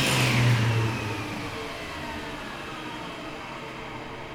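Altendorf F90 sliding table saw's main motor and blade spinning down under its electric motor brake after switch-off: a whine falling in pitch, loudest in the first second, then fading as the blade is braked to a stop.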